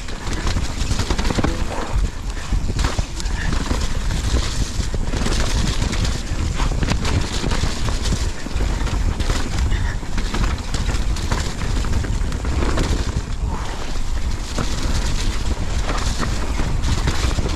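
YT full-suspension mountain bike descending a rough, muddy trail: continuous tyre rumble with constant clattering and rattling of the bike over roots and rocks.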